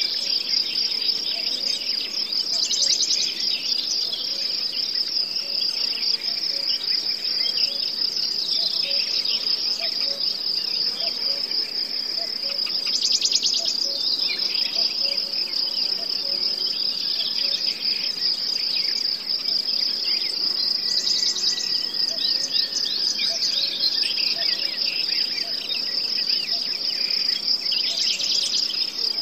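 Steady high-pitched chorus of trilling insects, with a louder, faster trill rising over it four times.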